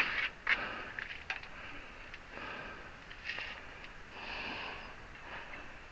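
A man breathing and sniffing through his nose, a few slow breaths that swell and fade, with a few small clicks.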